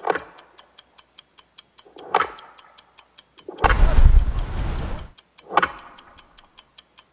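Edited intro soundtrack of steady clock-like ticking, about four to five ticks a second, with swooshing transition sounds at the start, about two seconds in and about five and a half seconds in. Around the middle, a second and a half of rushing wind-and-surf noise with a deep rumble cuts in over the ticking.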